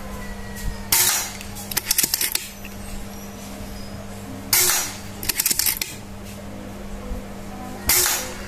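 Three shots from a silenced Predator Immortal PCP air rifle, about three and a half seconds apart, each a short hissing crack followed about a second later by a quick run of sharp metallic clicks.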